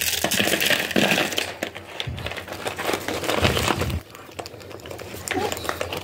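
Dry, stale bread crackling and crunching as young rabbits feed on it in a wire cage, with a few dull knocks. The crackle is densest for the first four seconds, then quieter.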